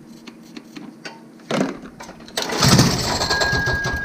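Racing lawn mower's small engine being cranked on a squirt of gasoline: a first cough about one and a half seconds in, then it fires and runs loudly on rapid firing strokes for over a second before fading. It is a sign that the engine has spark and will run on a prime, which points to a clogged carburetor.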